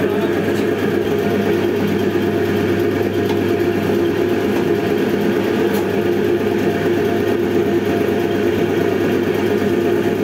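A steady mechanical drone, like an engine or motor running at a constant speed, with a low hum and a few held tones.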